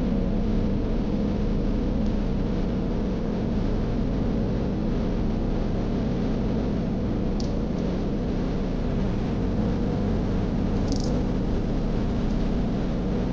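Steady low road and engine rumble inside a moving car's cabin, even in level throughout, with three brief faint high-pitched squeaks in the second half.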